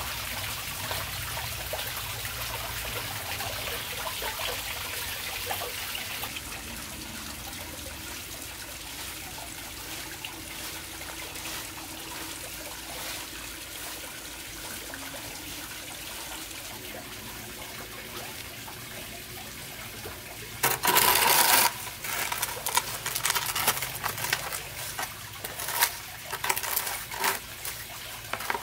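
Soft grass broom swishing steadily over a concrete yard. In the last third it turns louder and choppier, with short scraping strokes as the dirt is swept into a plastic dustpan.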